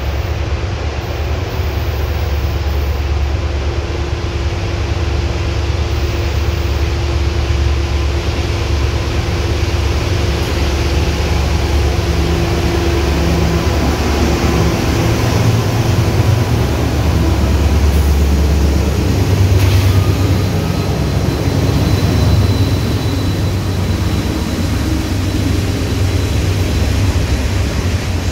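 CSX coal train's lead diesel-electric locomotives approaching and passing under power as the train climbs a grade, a deep steady rumble that is loudest around the middle. Then the loaded coal hopper cars roll by on the rails.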